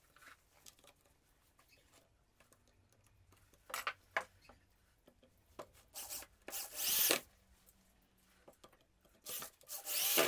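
Electric drill boring into a furniture-laminate board in about four short bursts, its motor whine rising in pitch as it speeds up each time.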